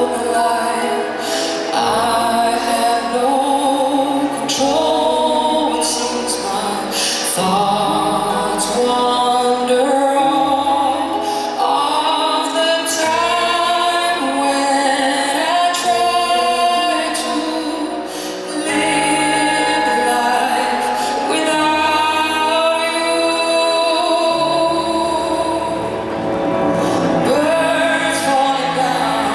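A female singer sings a slow pop song live, over instrumental accompaniment.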